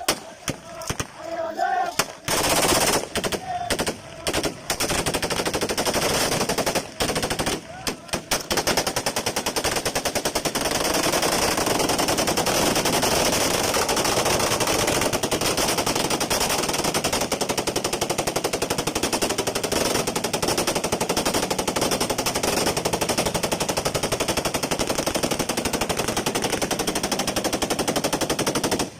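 Automatic gunfire, fired in the air in tribute: separate bursts over the first few seconds, then a dense, unbroken volley from about eight seconds in.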